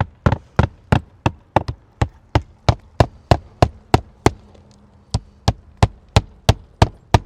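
Nails being driven into new asphalt roof shingles: sharp, evenly spaced strikes about three a second, with one short break a little past the middle.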